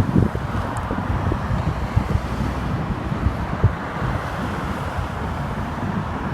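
Steady interstate traffic noise, vehicles passing, with wind buffeting the microphone; no horn sounds.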